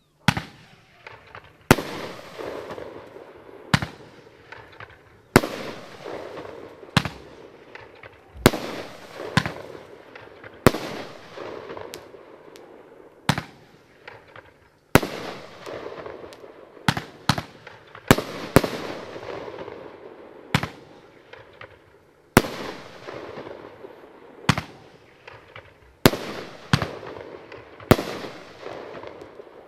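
Lesli Golden Crown consumer fireworks cake firing shot after shot, a sharp bang about every one to two seconds. Each bang trails off over a second or so, with a few shots coming closer together.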